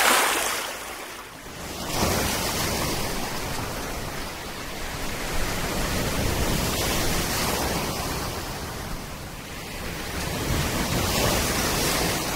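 Surf breaking and washing in over the shallows: a steady rushing noise that eases and swells again.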